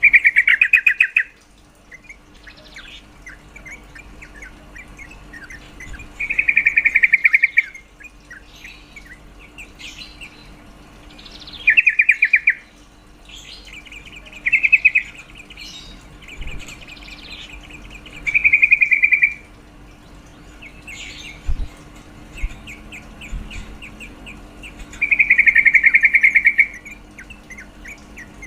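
Female yellow-vented bulbul (trucukan) calling: six loud bursts of rapid stuttering chatter, each about a second long, with softer scattered chirps between them. This is the female's call used as a lure to get males singing.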